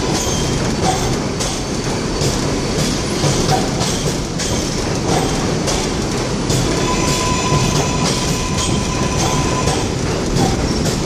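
New York City Subway R142A train rolling slowly along an elevated platform. Its wheels click over the rail joints in a steady rhythm over a continuous rumble, with a thin steady whine that fades out for a while midway.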